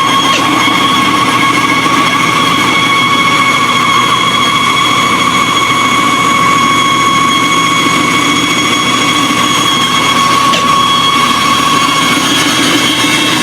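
Bandsaw running through a cut: a steady high whine over a constant hiss.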